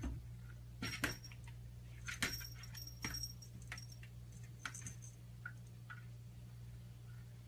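Small bell on a cat's collar jingling in several short bursts as the cat paws at a door, some jingles leaving a brief high ring, over a steady low hum.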